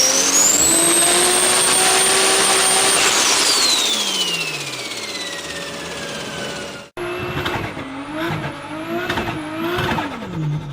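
Turbocharged car engine revving, its turbo whistle climbing to a high held pitch, then sliding steadily down for a few seconds as the engine comes off the throttle and the turbo spools down. After an abrupt cut, another turbocharged engine is blipped several times in quick succession, its turbo whistle rising and falling with each rev.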